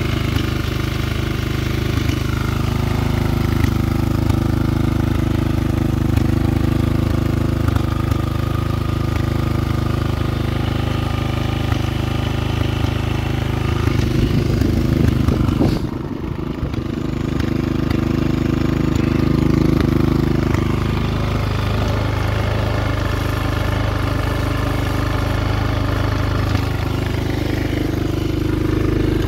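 Bashan quad ATV's single-cylinder engine idling steadily, with a brief unsteady patch about halfway through.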